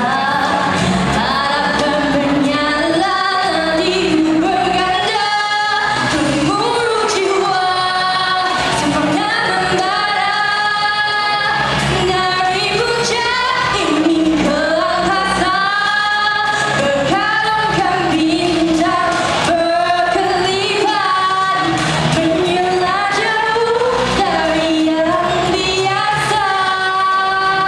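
A female solo singer sings a Malay song into a handheld microphone over instrumental accompaniment.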